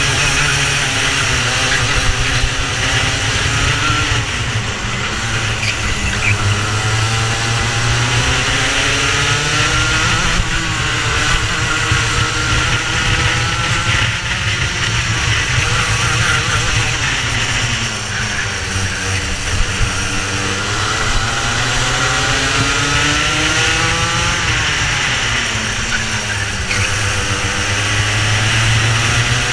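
Racing kart engine at full race pace, its pitch climbing and falling again and again: it drops at about 17 and 25 seconds in and climbs after each.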